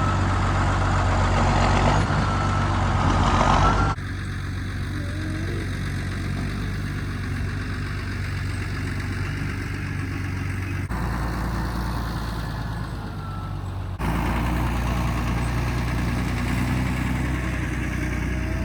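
Farm tractor engine running steadily. Its level shifts abruptly about four seconds in and twice more later.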